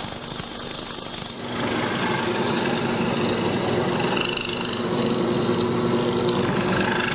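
Drill press running with a hollow-chisel mortising attachment, the auger turning inside the square chisel as it is fed into the wood to cut a mortise. About a second and a half in, a high whine drops out and a rougher, steady cutting sound takes over.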